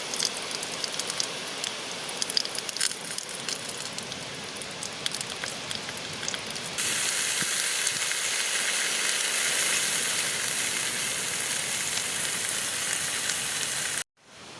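Bacon and sausage frying on a camping stove: a crackling sizzle that turns into a steadier, louder hiss about seven seconds in, then cuts off abruptly just before the end.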